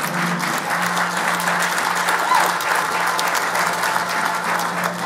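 Audience applauding, with music playing underneath on held low bass notes.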